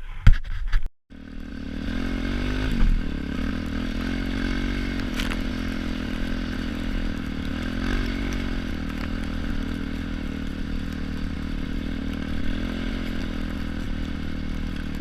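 Motorcycle engine running steadily, with a short rise in revs about two to three seconds in. A few sharp knocks come just before it, in the first second.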